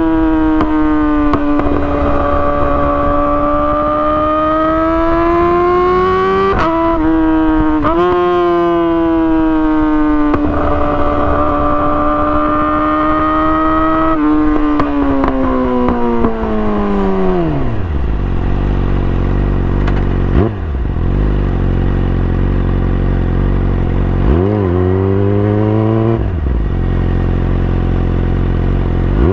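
2017 Yamaha R6 inline-four with an Akrapovic exhaust, held at high, steady revs with a couple of quick gear changes, then the revs fall away to idle about seventeen seconds in. A few short throttle blips follow, and the revs climb again at the end.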